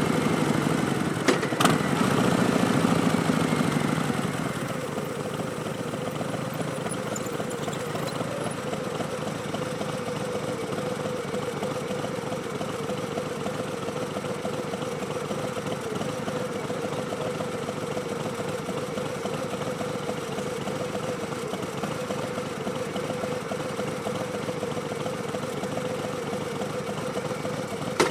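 Harley-Davidson Street Bob's Milwaukee-Eight V-twin through Vance & Hines Twin Slash slip-on mufflers. It runs louder for the first few seconds, with a couple of sharp clicks, then drops to a steady idle.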